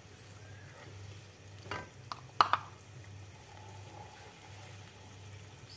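A ladle stirring a simmering coconut-milk curry in a pot, with a few sharp knocks of the ladle against the pot about two seconds in. A steady low hum runs underneath.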